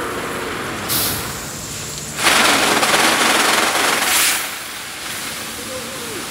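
Automatic car wash in operation: big rotating brushes swishing over the car and water spraying, a steady wet rush. About two seconds in the spray and brush noise swells into a much louder rush lasting around two seconds, then drops back.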